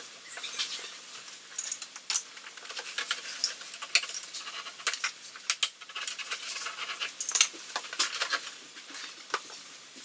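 Rapid, irregular clicks, taps and scrapes of a vinyl plank being lifted, handled and set back down on a bare subfloor.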